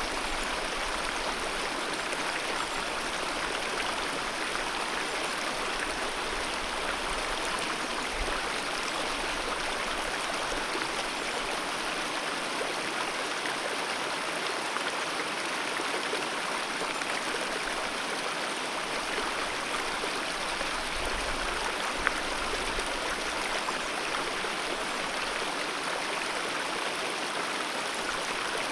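Alpine mountain river rushing steadily, an even, unbroken wash of running water. One brief click about three quarters of the way through.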